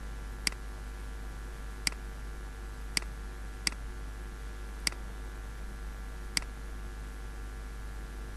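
Computer mouse button clicked six times at uneven intervals, each a short sharp click, over a steady low electrical hum.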